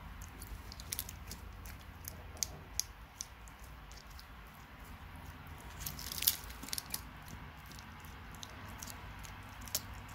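Tegu crunching the shell of a giant African land snail in its jaws: scattered sharp cracks and clicks, the loudest about six seconds in.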